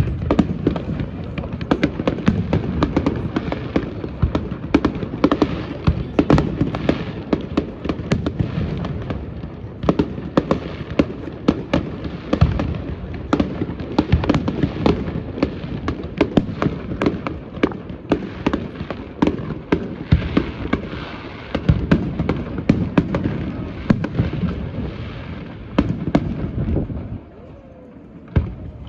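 Fireworks display: a dense, continuous barrage of aerial shell bursts, booms and crackling. It stops abruptly about 27 seconds in, leaving a quieter background.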